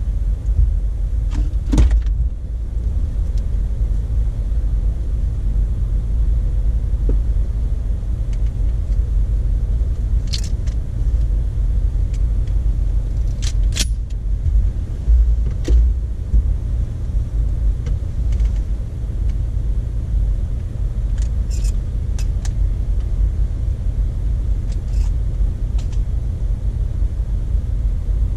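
Low, steady rumble of a Jeep Wrangler, with a few short clicks and light rattles scattered through it.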